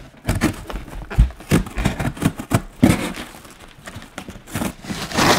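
Cardboard shipping box being torn open by hand: a quick, irregular run of thumps and knocks on the box, with scraping and ripping of the taped cardboard flaps.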